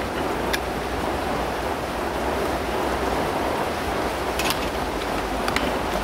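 Heavy rain falling as a steady, even hiss, with a few faint clicks of small iPod parts being handled.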